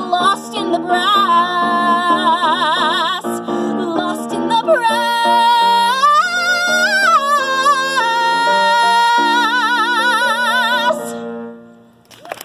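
A woman singing the long held closing notes of a show tune with wide vibrato through a microphone, over electric keyboard chords. About six seconds in her voice climbs to a high note and comes back down, and near the end the singing stops and the keyboard chord fades away.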